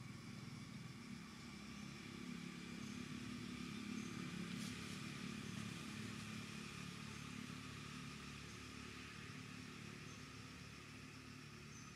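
Faint low engine rumble of a distant vehicle, swelling about four seconds in and then slowly fading, over a steady faint high hiss.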